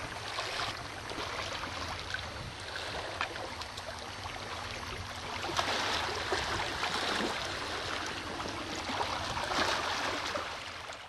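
Steady rush of water and wind noise at the shoreline, with louder swells about six seconds in and near the end before it fades out.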